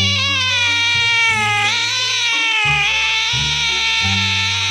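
A cat's one long, drawn-out yowl with its pitch wavering slightly, over background music with low bass notes.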